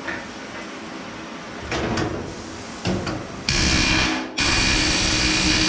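Pneumatic rivet hammer setting a hot rivet. A few sharp knocks are followed by two loud bursts of rapid hammering with a steady buzzing hum, each starting and cutting off abruptly as the trigger is pulled and released.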